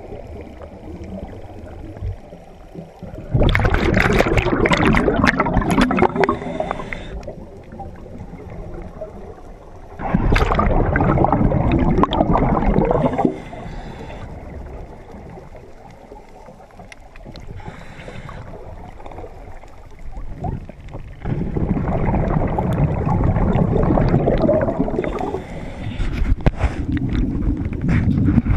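Scuba regulator underwater: bursts of exhaled bubbles, each a few seconds long, recur about every seven to ten seconds with quieter stretches between, the sound of the filming diver's breathing.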